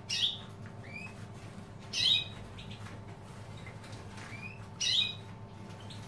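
European goldfinches calling: three loud, short, high calls about two and a half seconds apart, with fainter short rising chirps between them.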